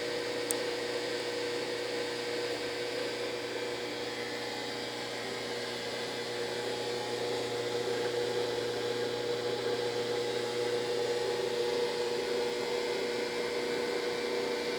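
Brastemp BWG11AB washing machine giving off a steady, horrible humming whine with no change in pitch: the machine has locked up in its wash program and will not go on to spin.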